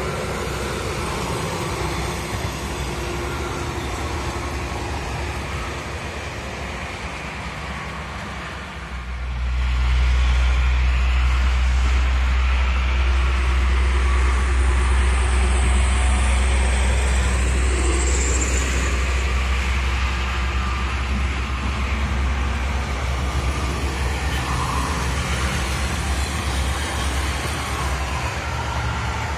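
Toll-road traffic passing: the steady tyre and engine noise of cars and trucks on the motorway. About nine seconds in a deep low rumble comes in and stays.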